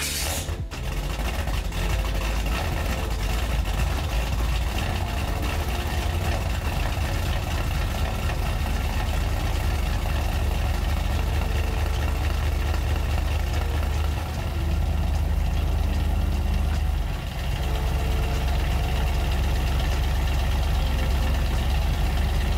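Chevrolet Camaro's engine idling steadily, heard from behind near the exhaust, with two brief dips in loudness in the second half.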